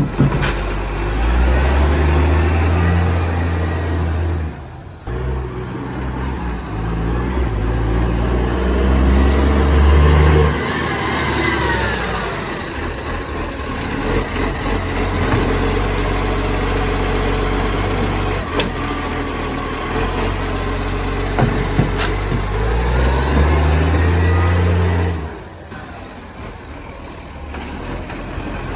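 Diesel engine of an Acco-cab garbage truck revving up hard three times, about a second in, about six seconds in and near the end, dropping back to a lower run between. It is loud, with a massive exhaust leak.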